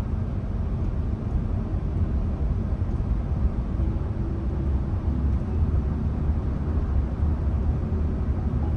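Steady low rumble of a 2011 Renault Samsung New SM3 being driven: engine and road noise.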